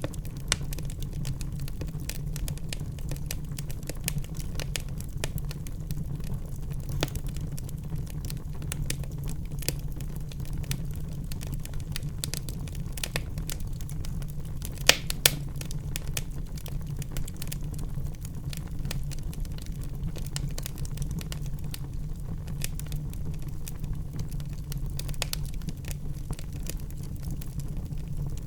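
Wood fire burning in a fireplace: a steady low rumble of the flames with frequent small crackles, and two loud sharp pops in quick succession about halfway through.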